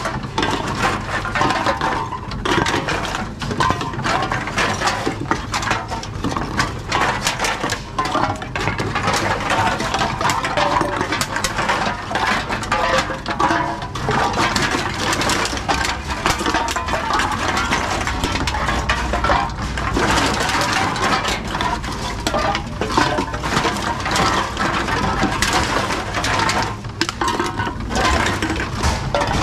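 Aluminium drink cans clattering and clinking as they are picked out of wire carts and pushed into reverse vending machines, a continuous run of light metallic knocks over a steady low hum.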